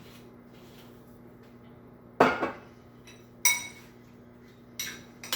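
Kitchen utensil knocking and clinking against a dish: one duller knock about two seconds in, then three sharp clinks with a short ring, spaced about a second apart.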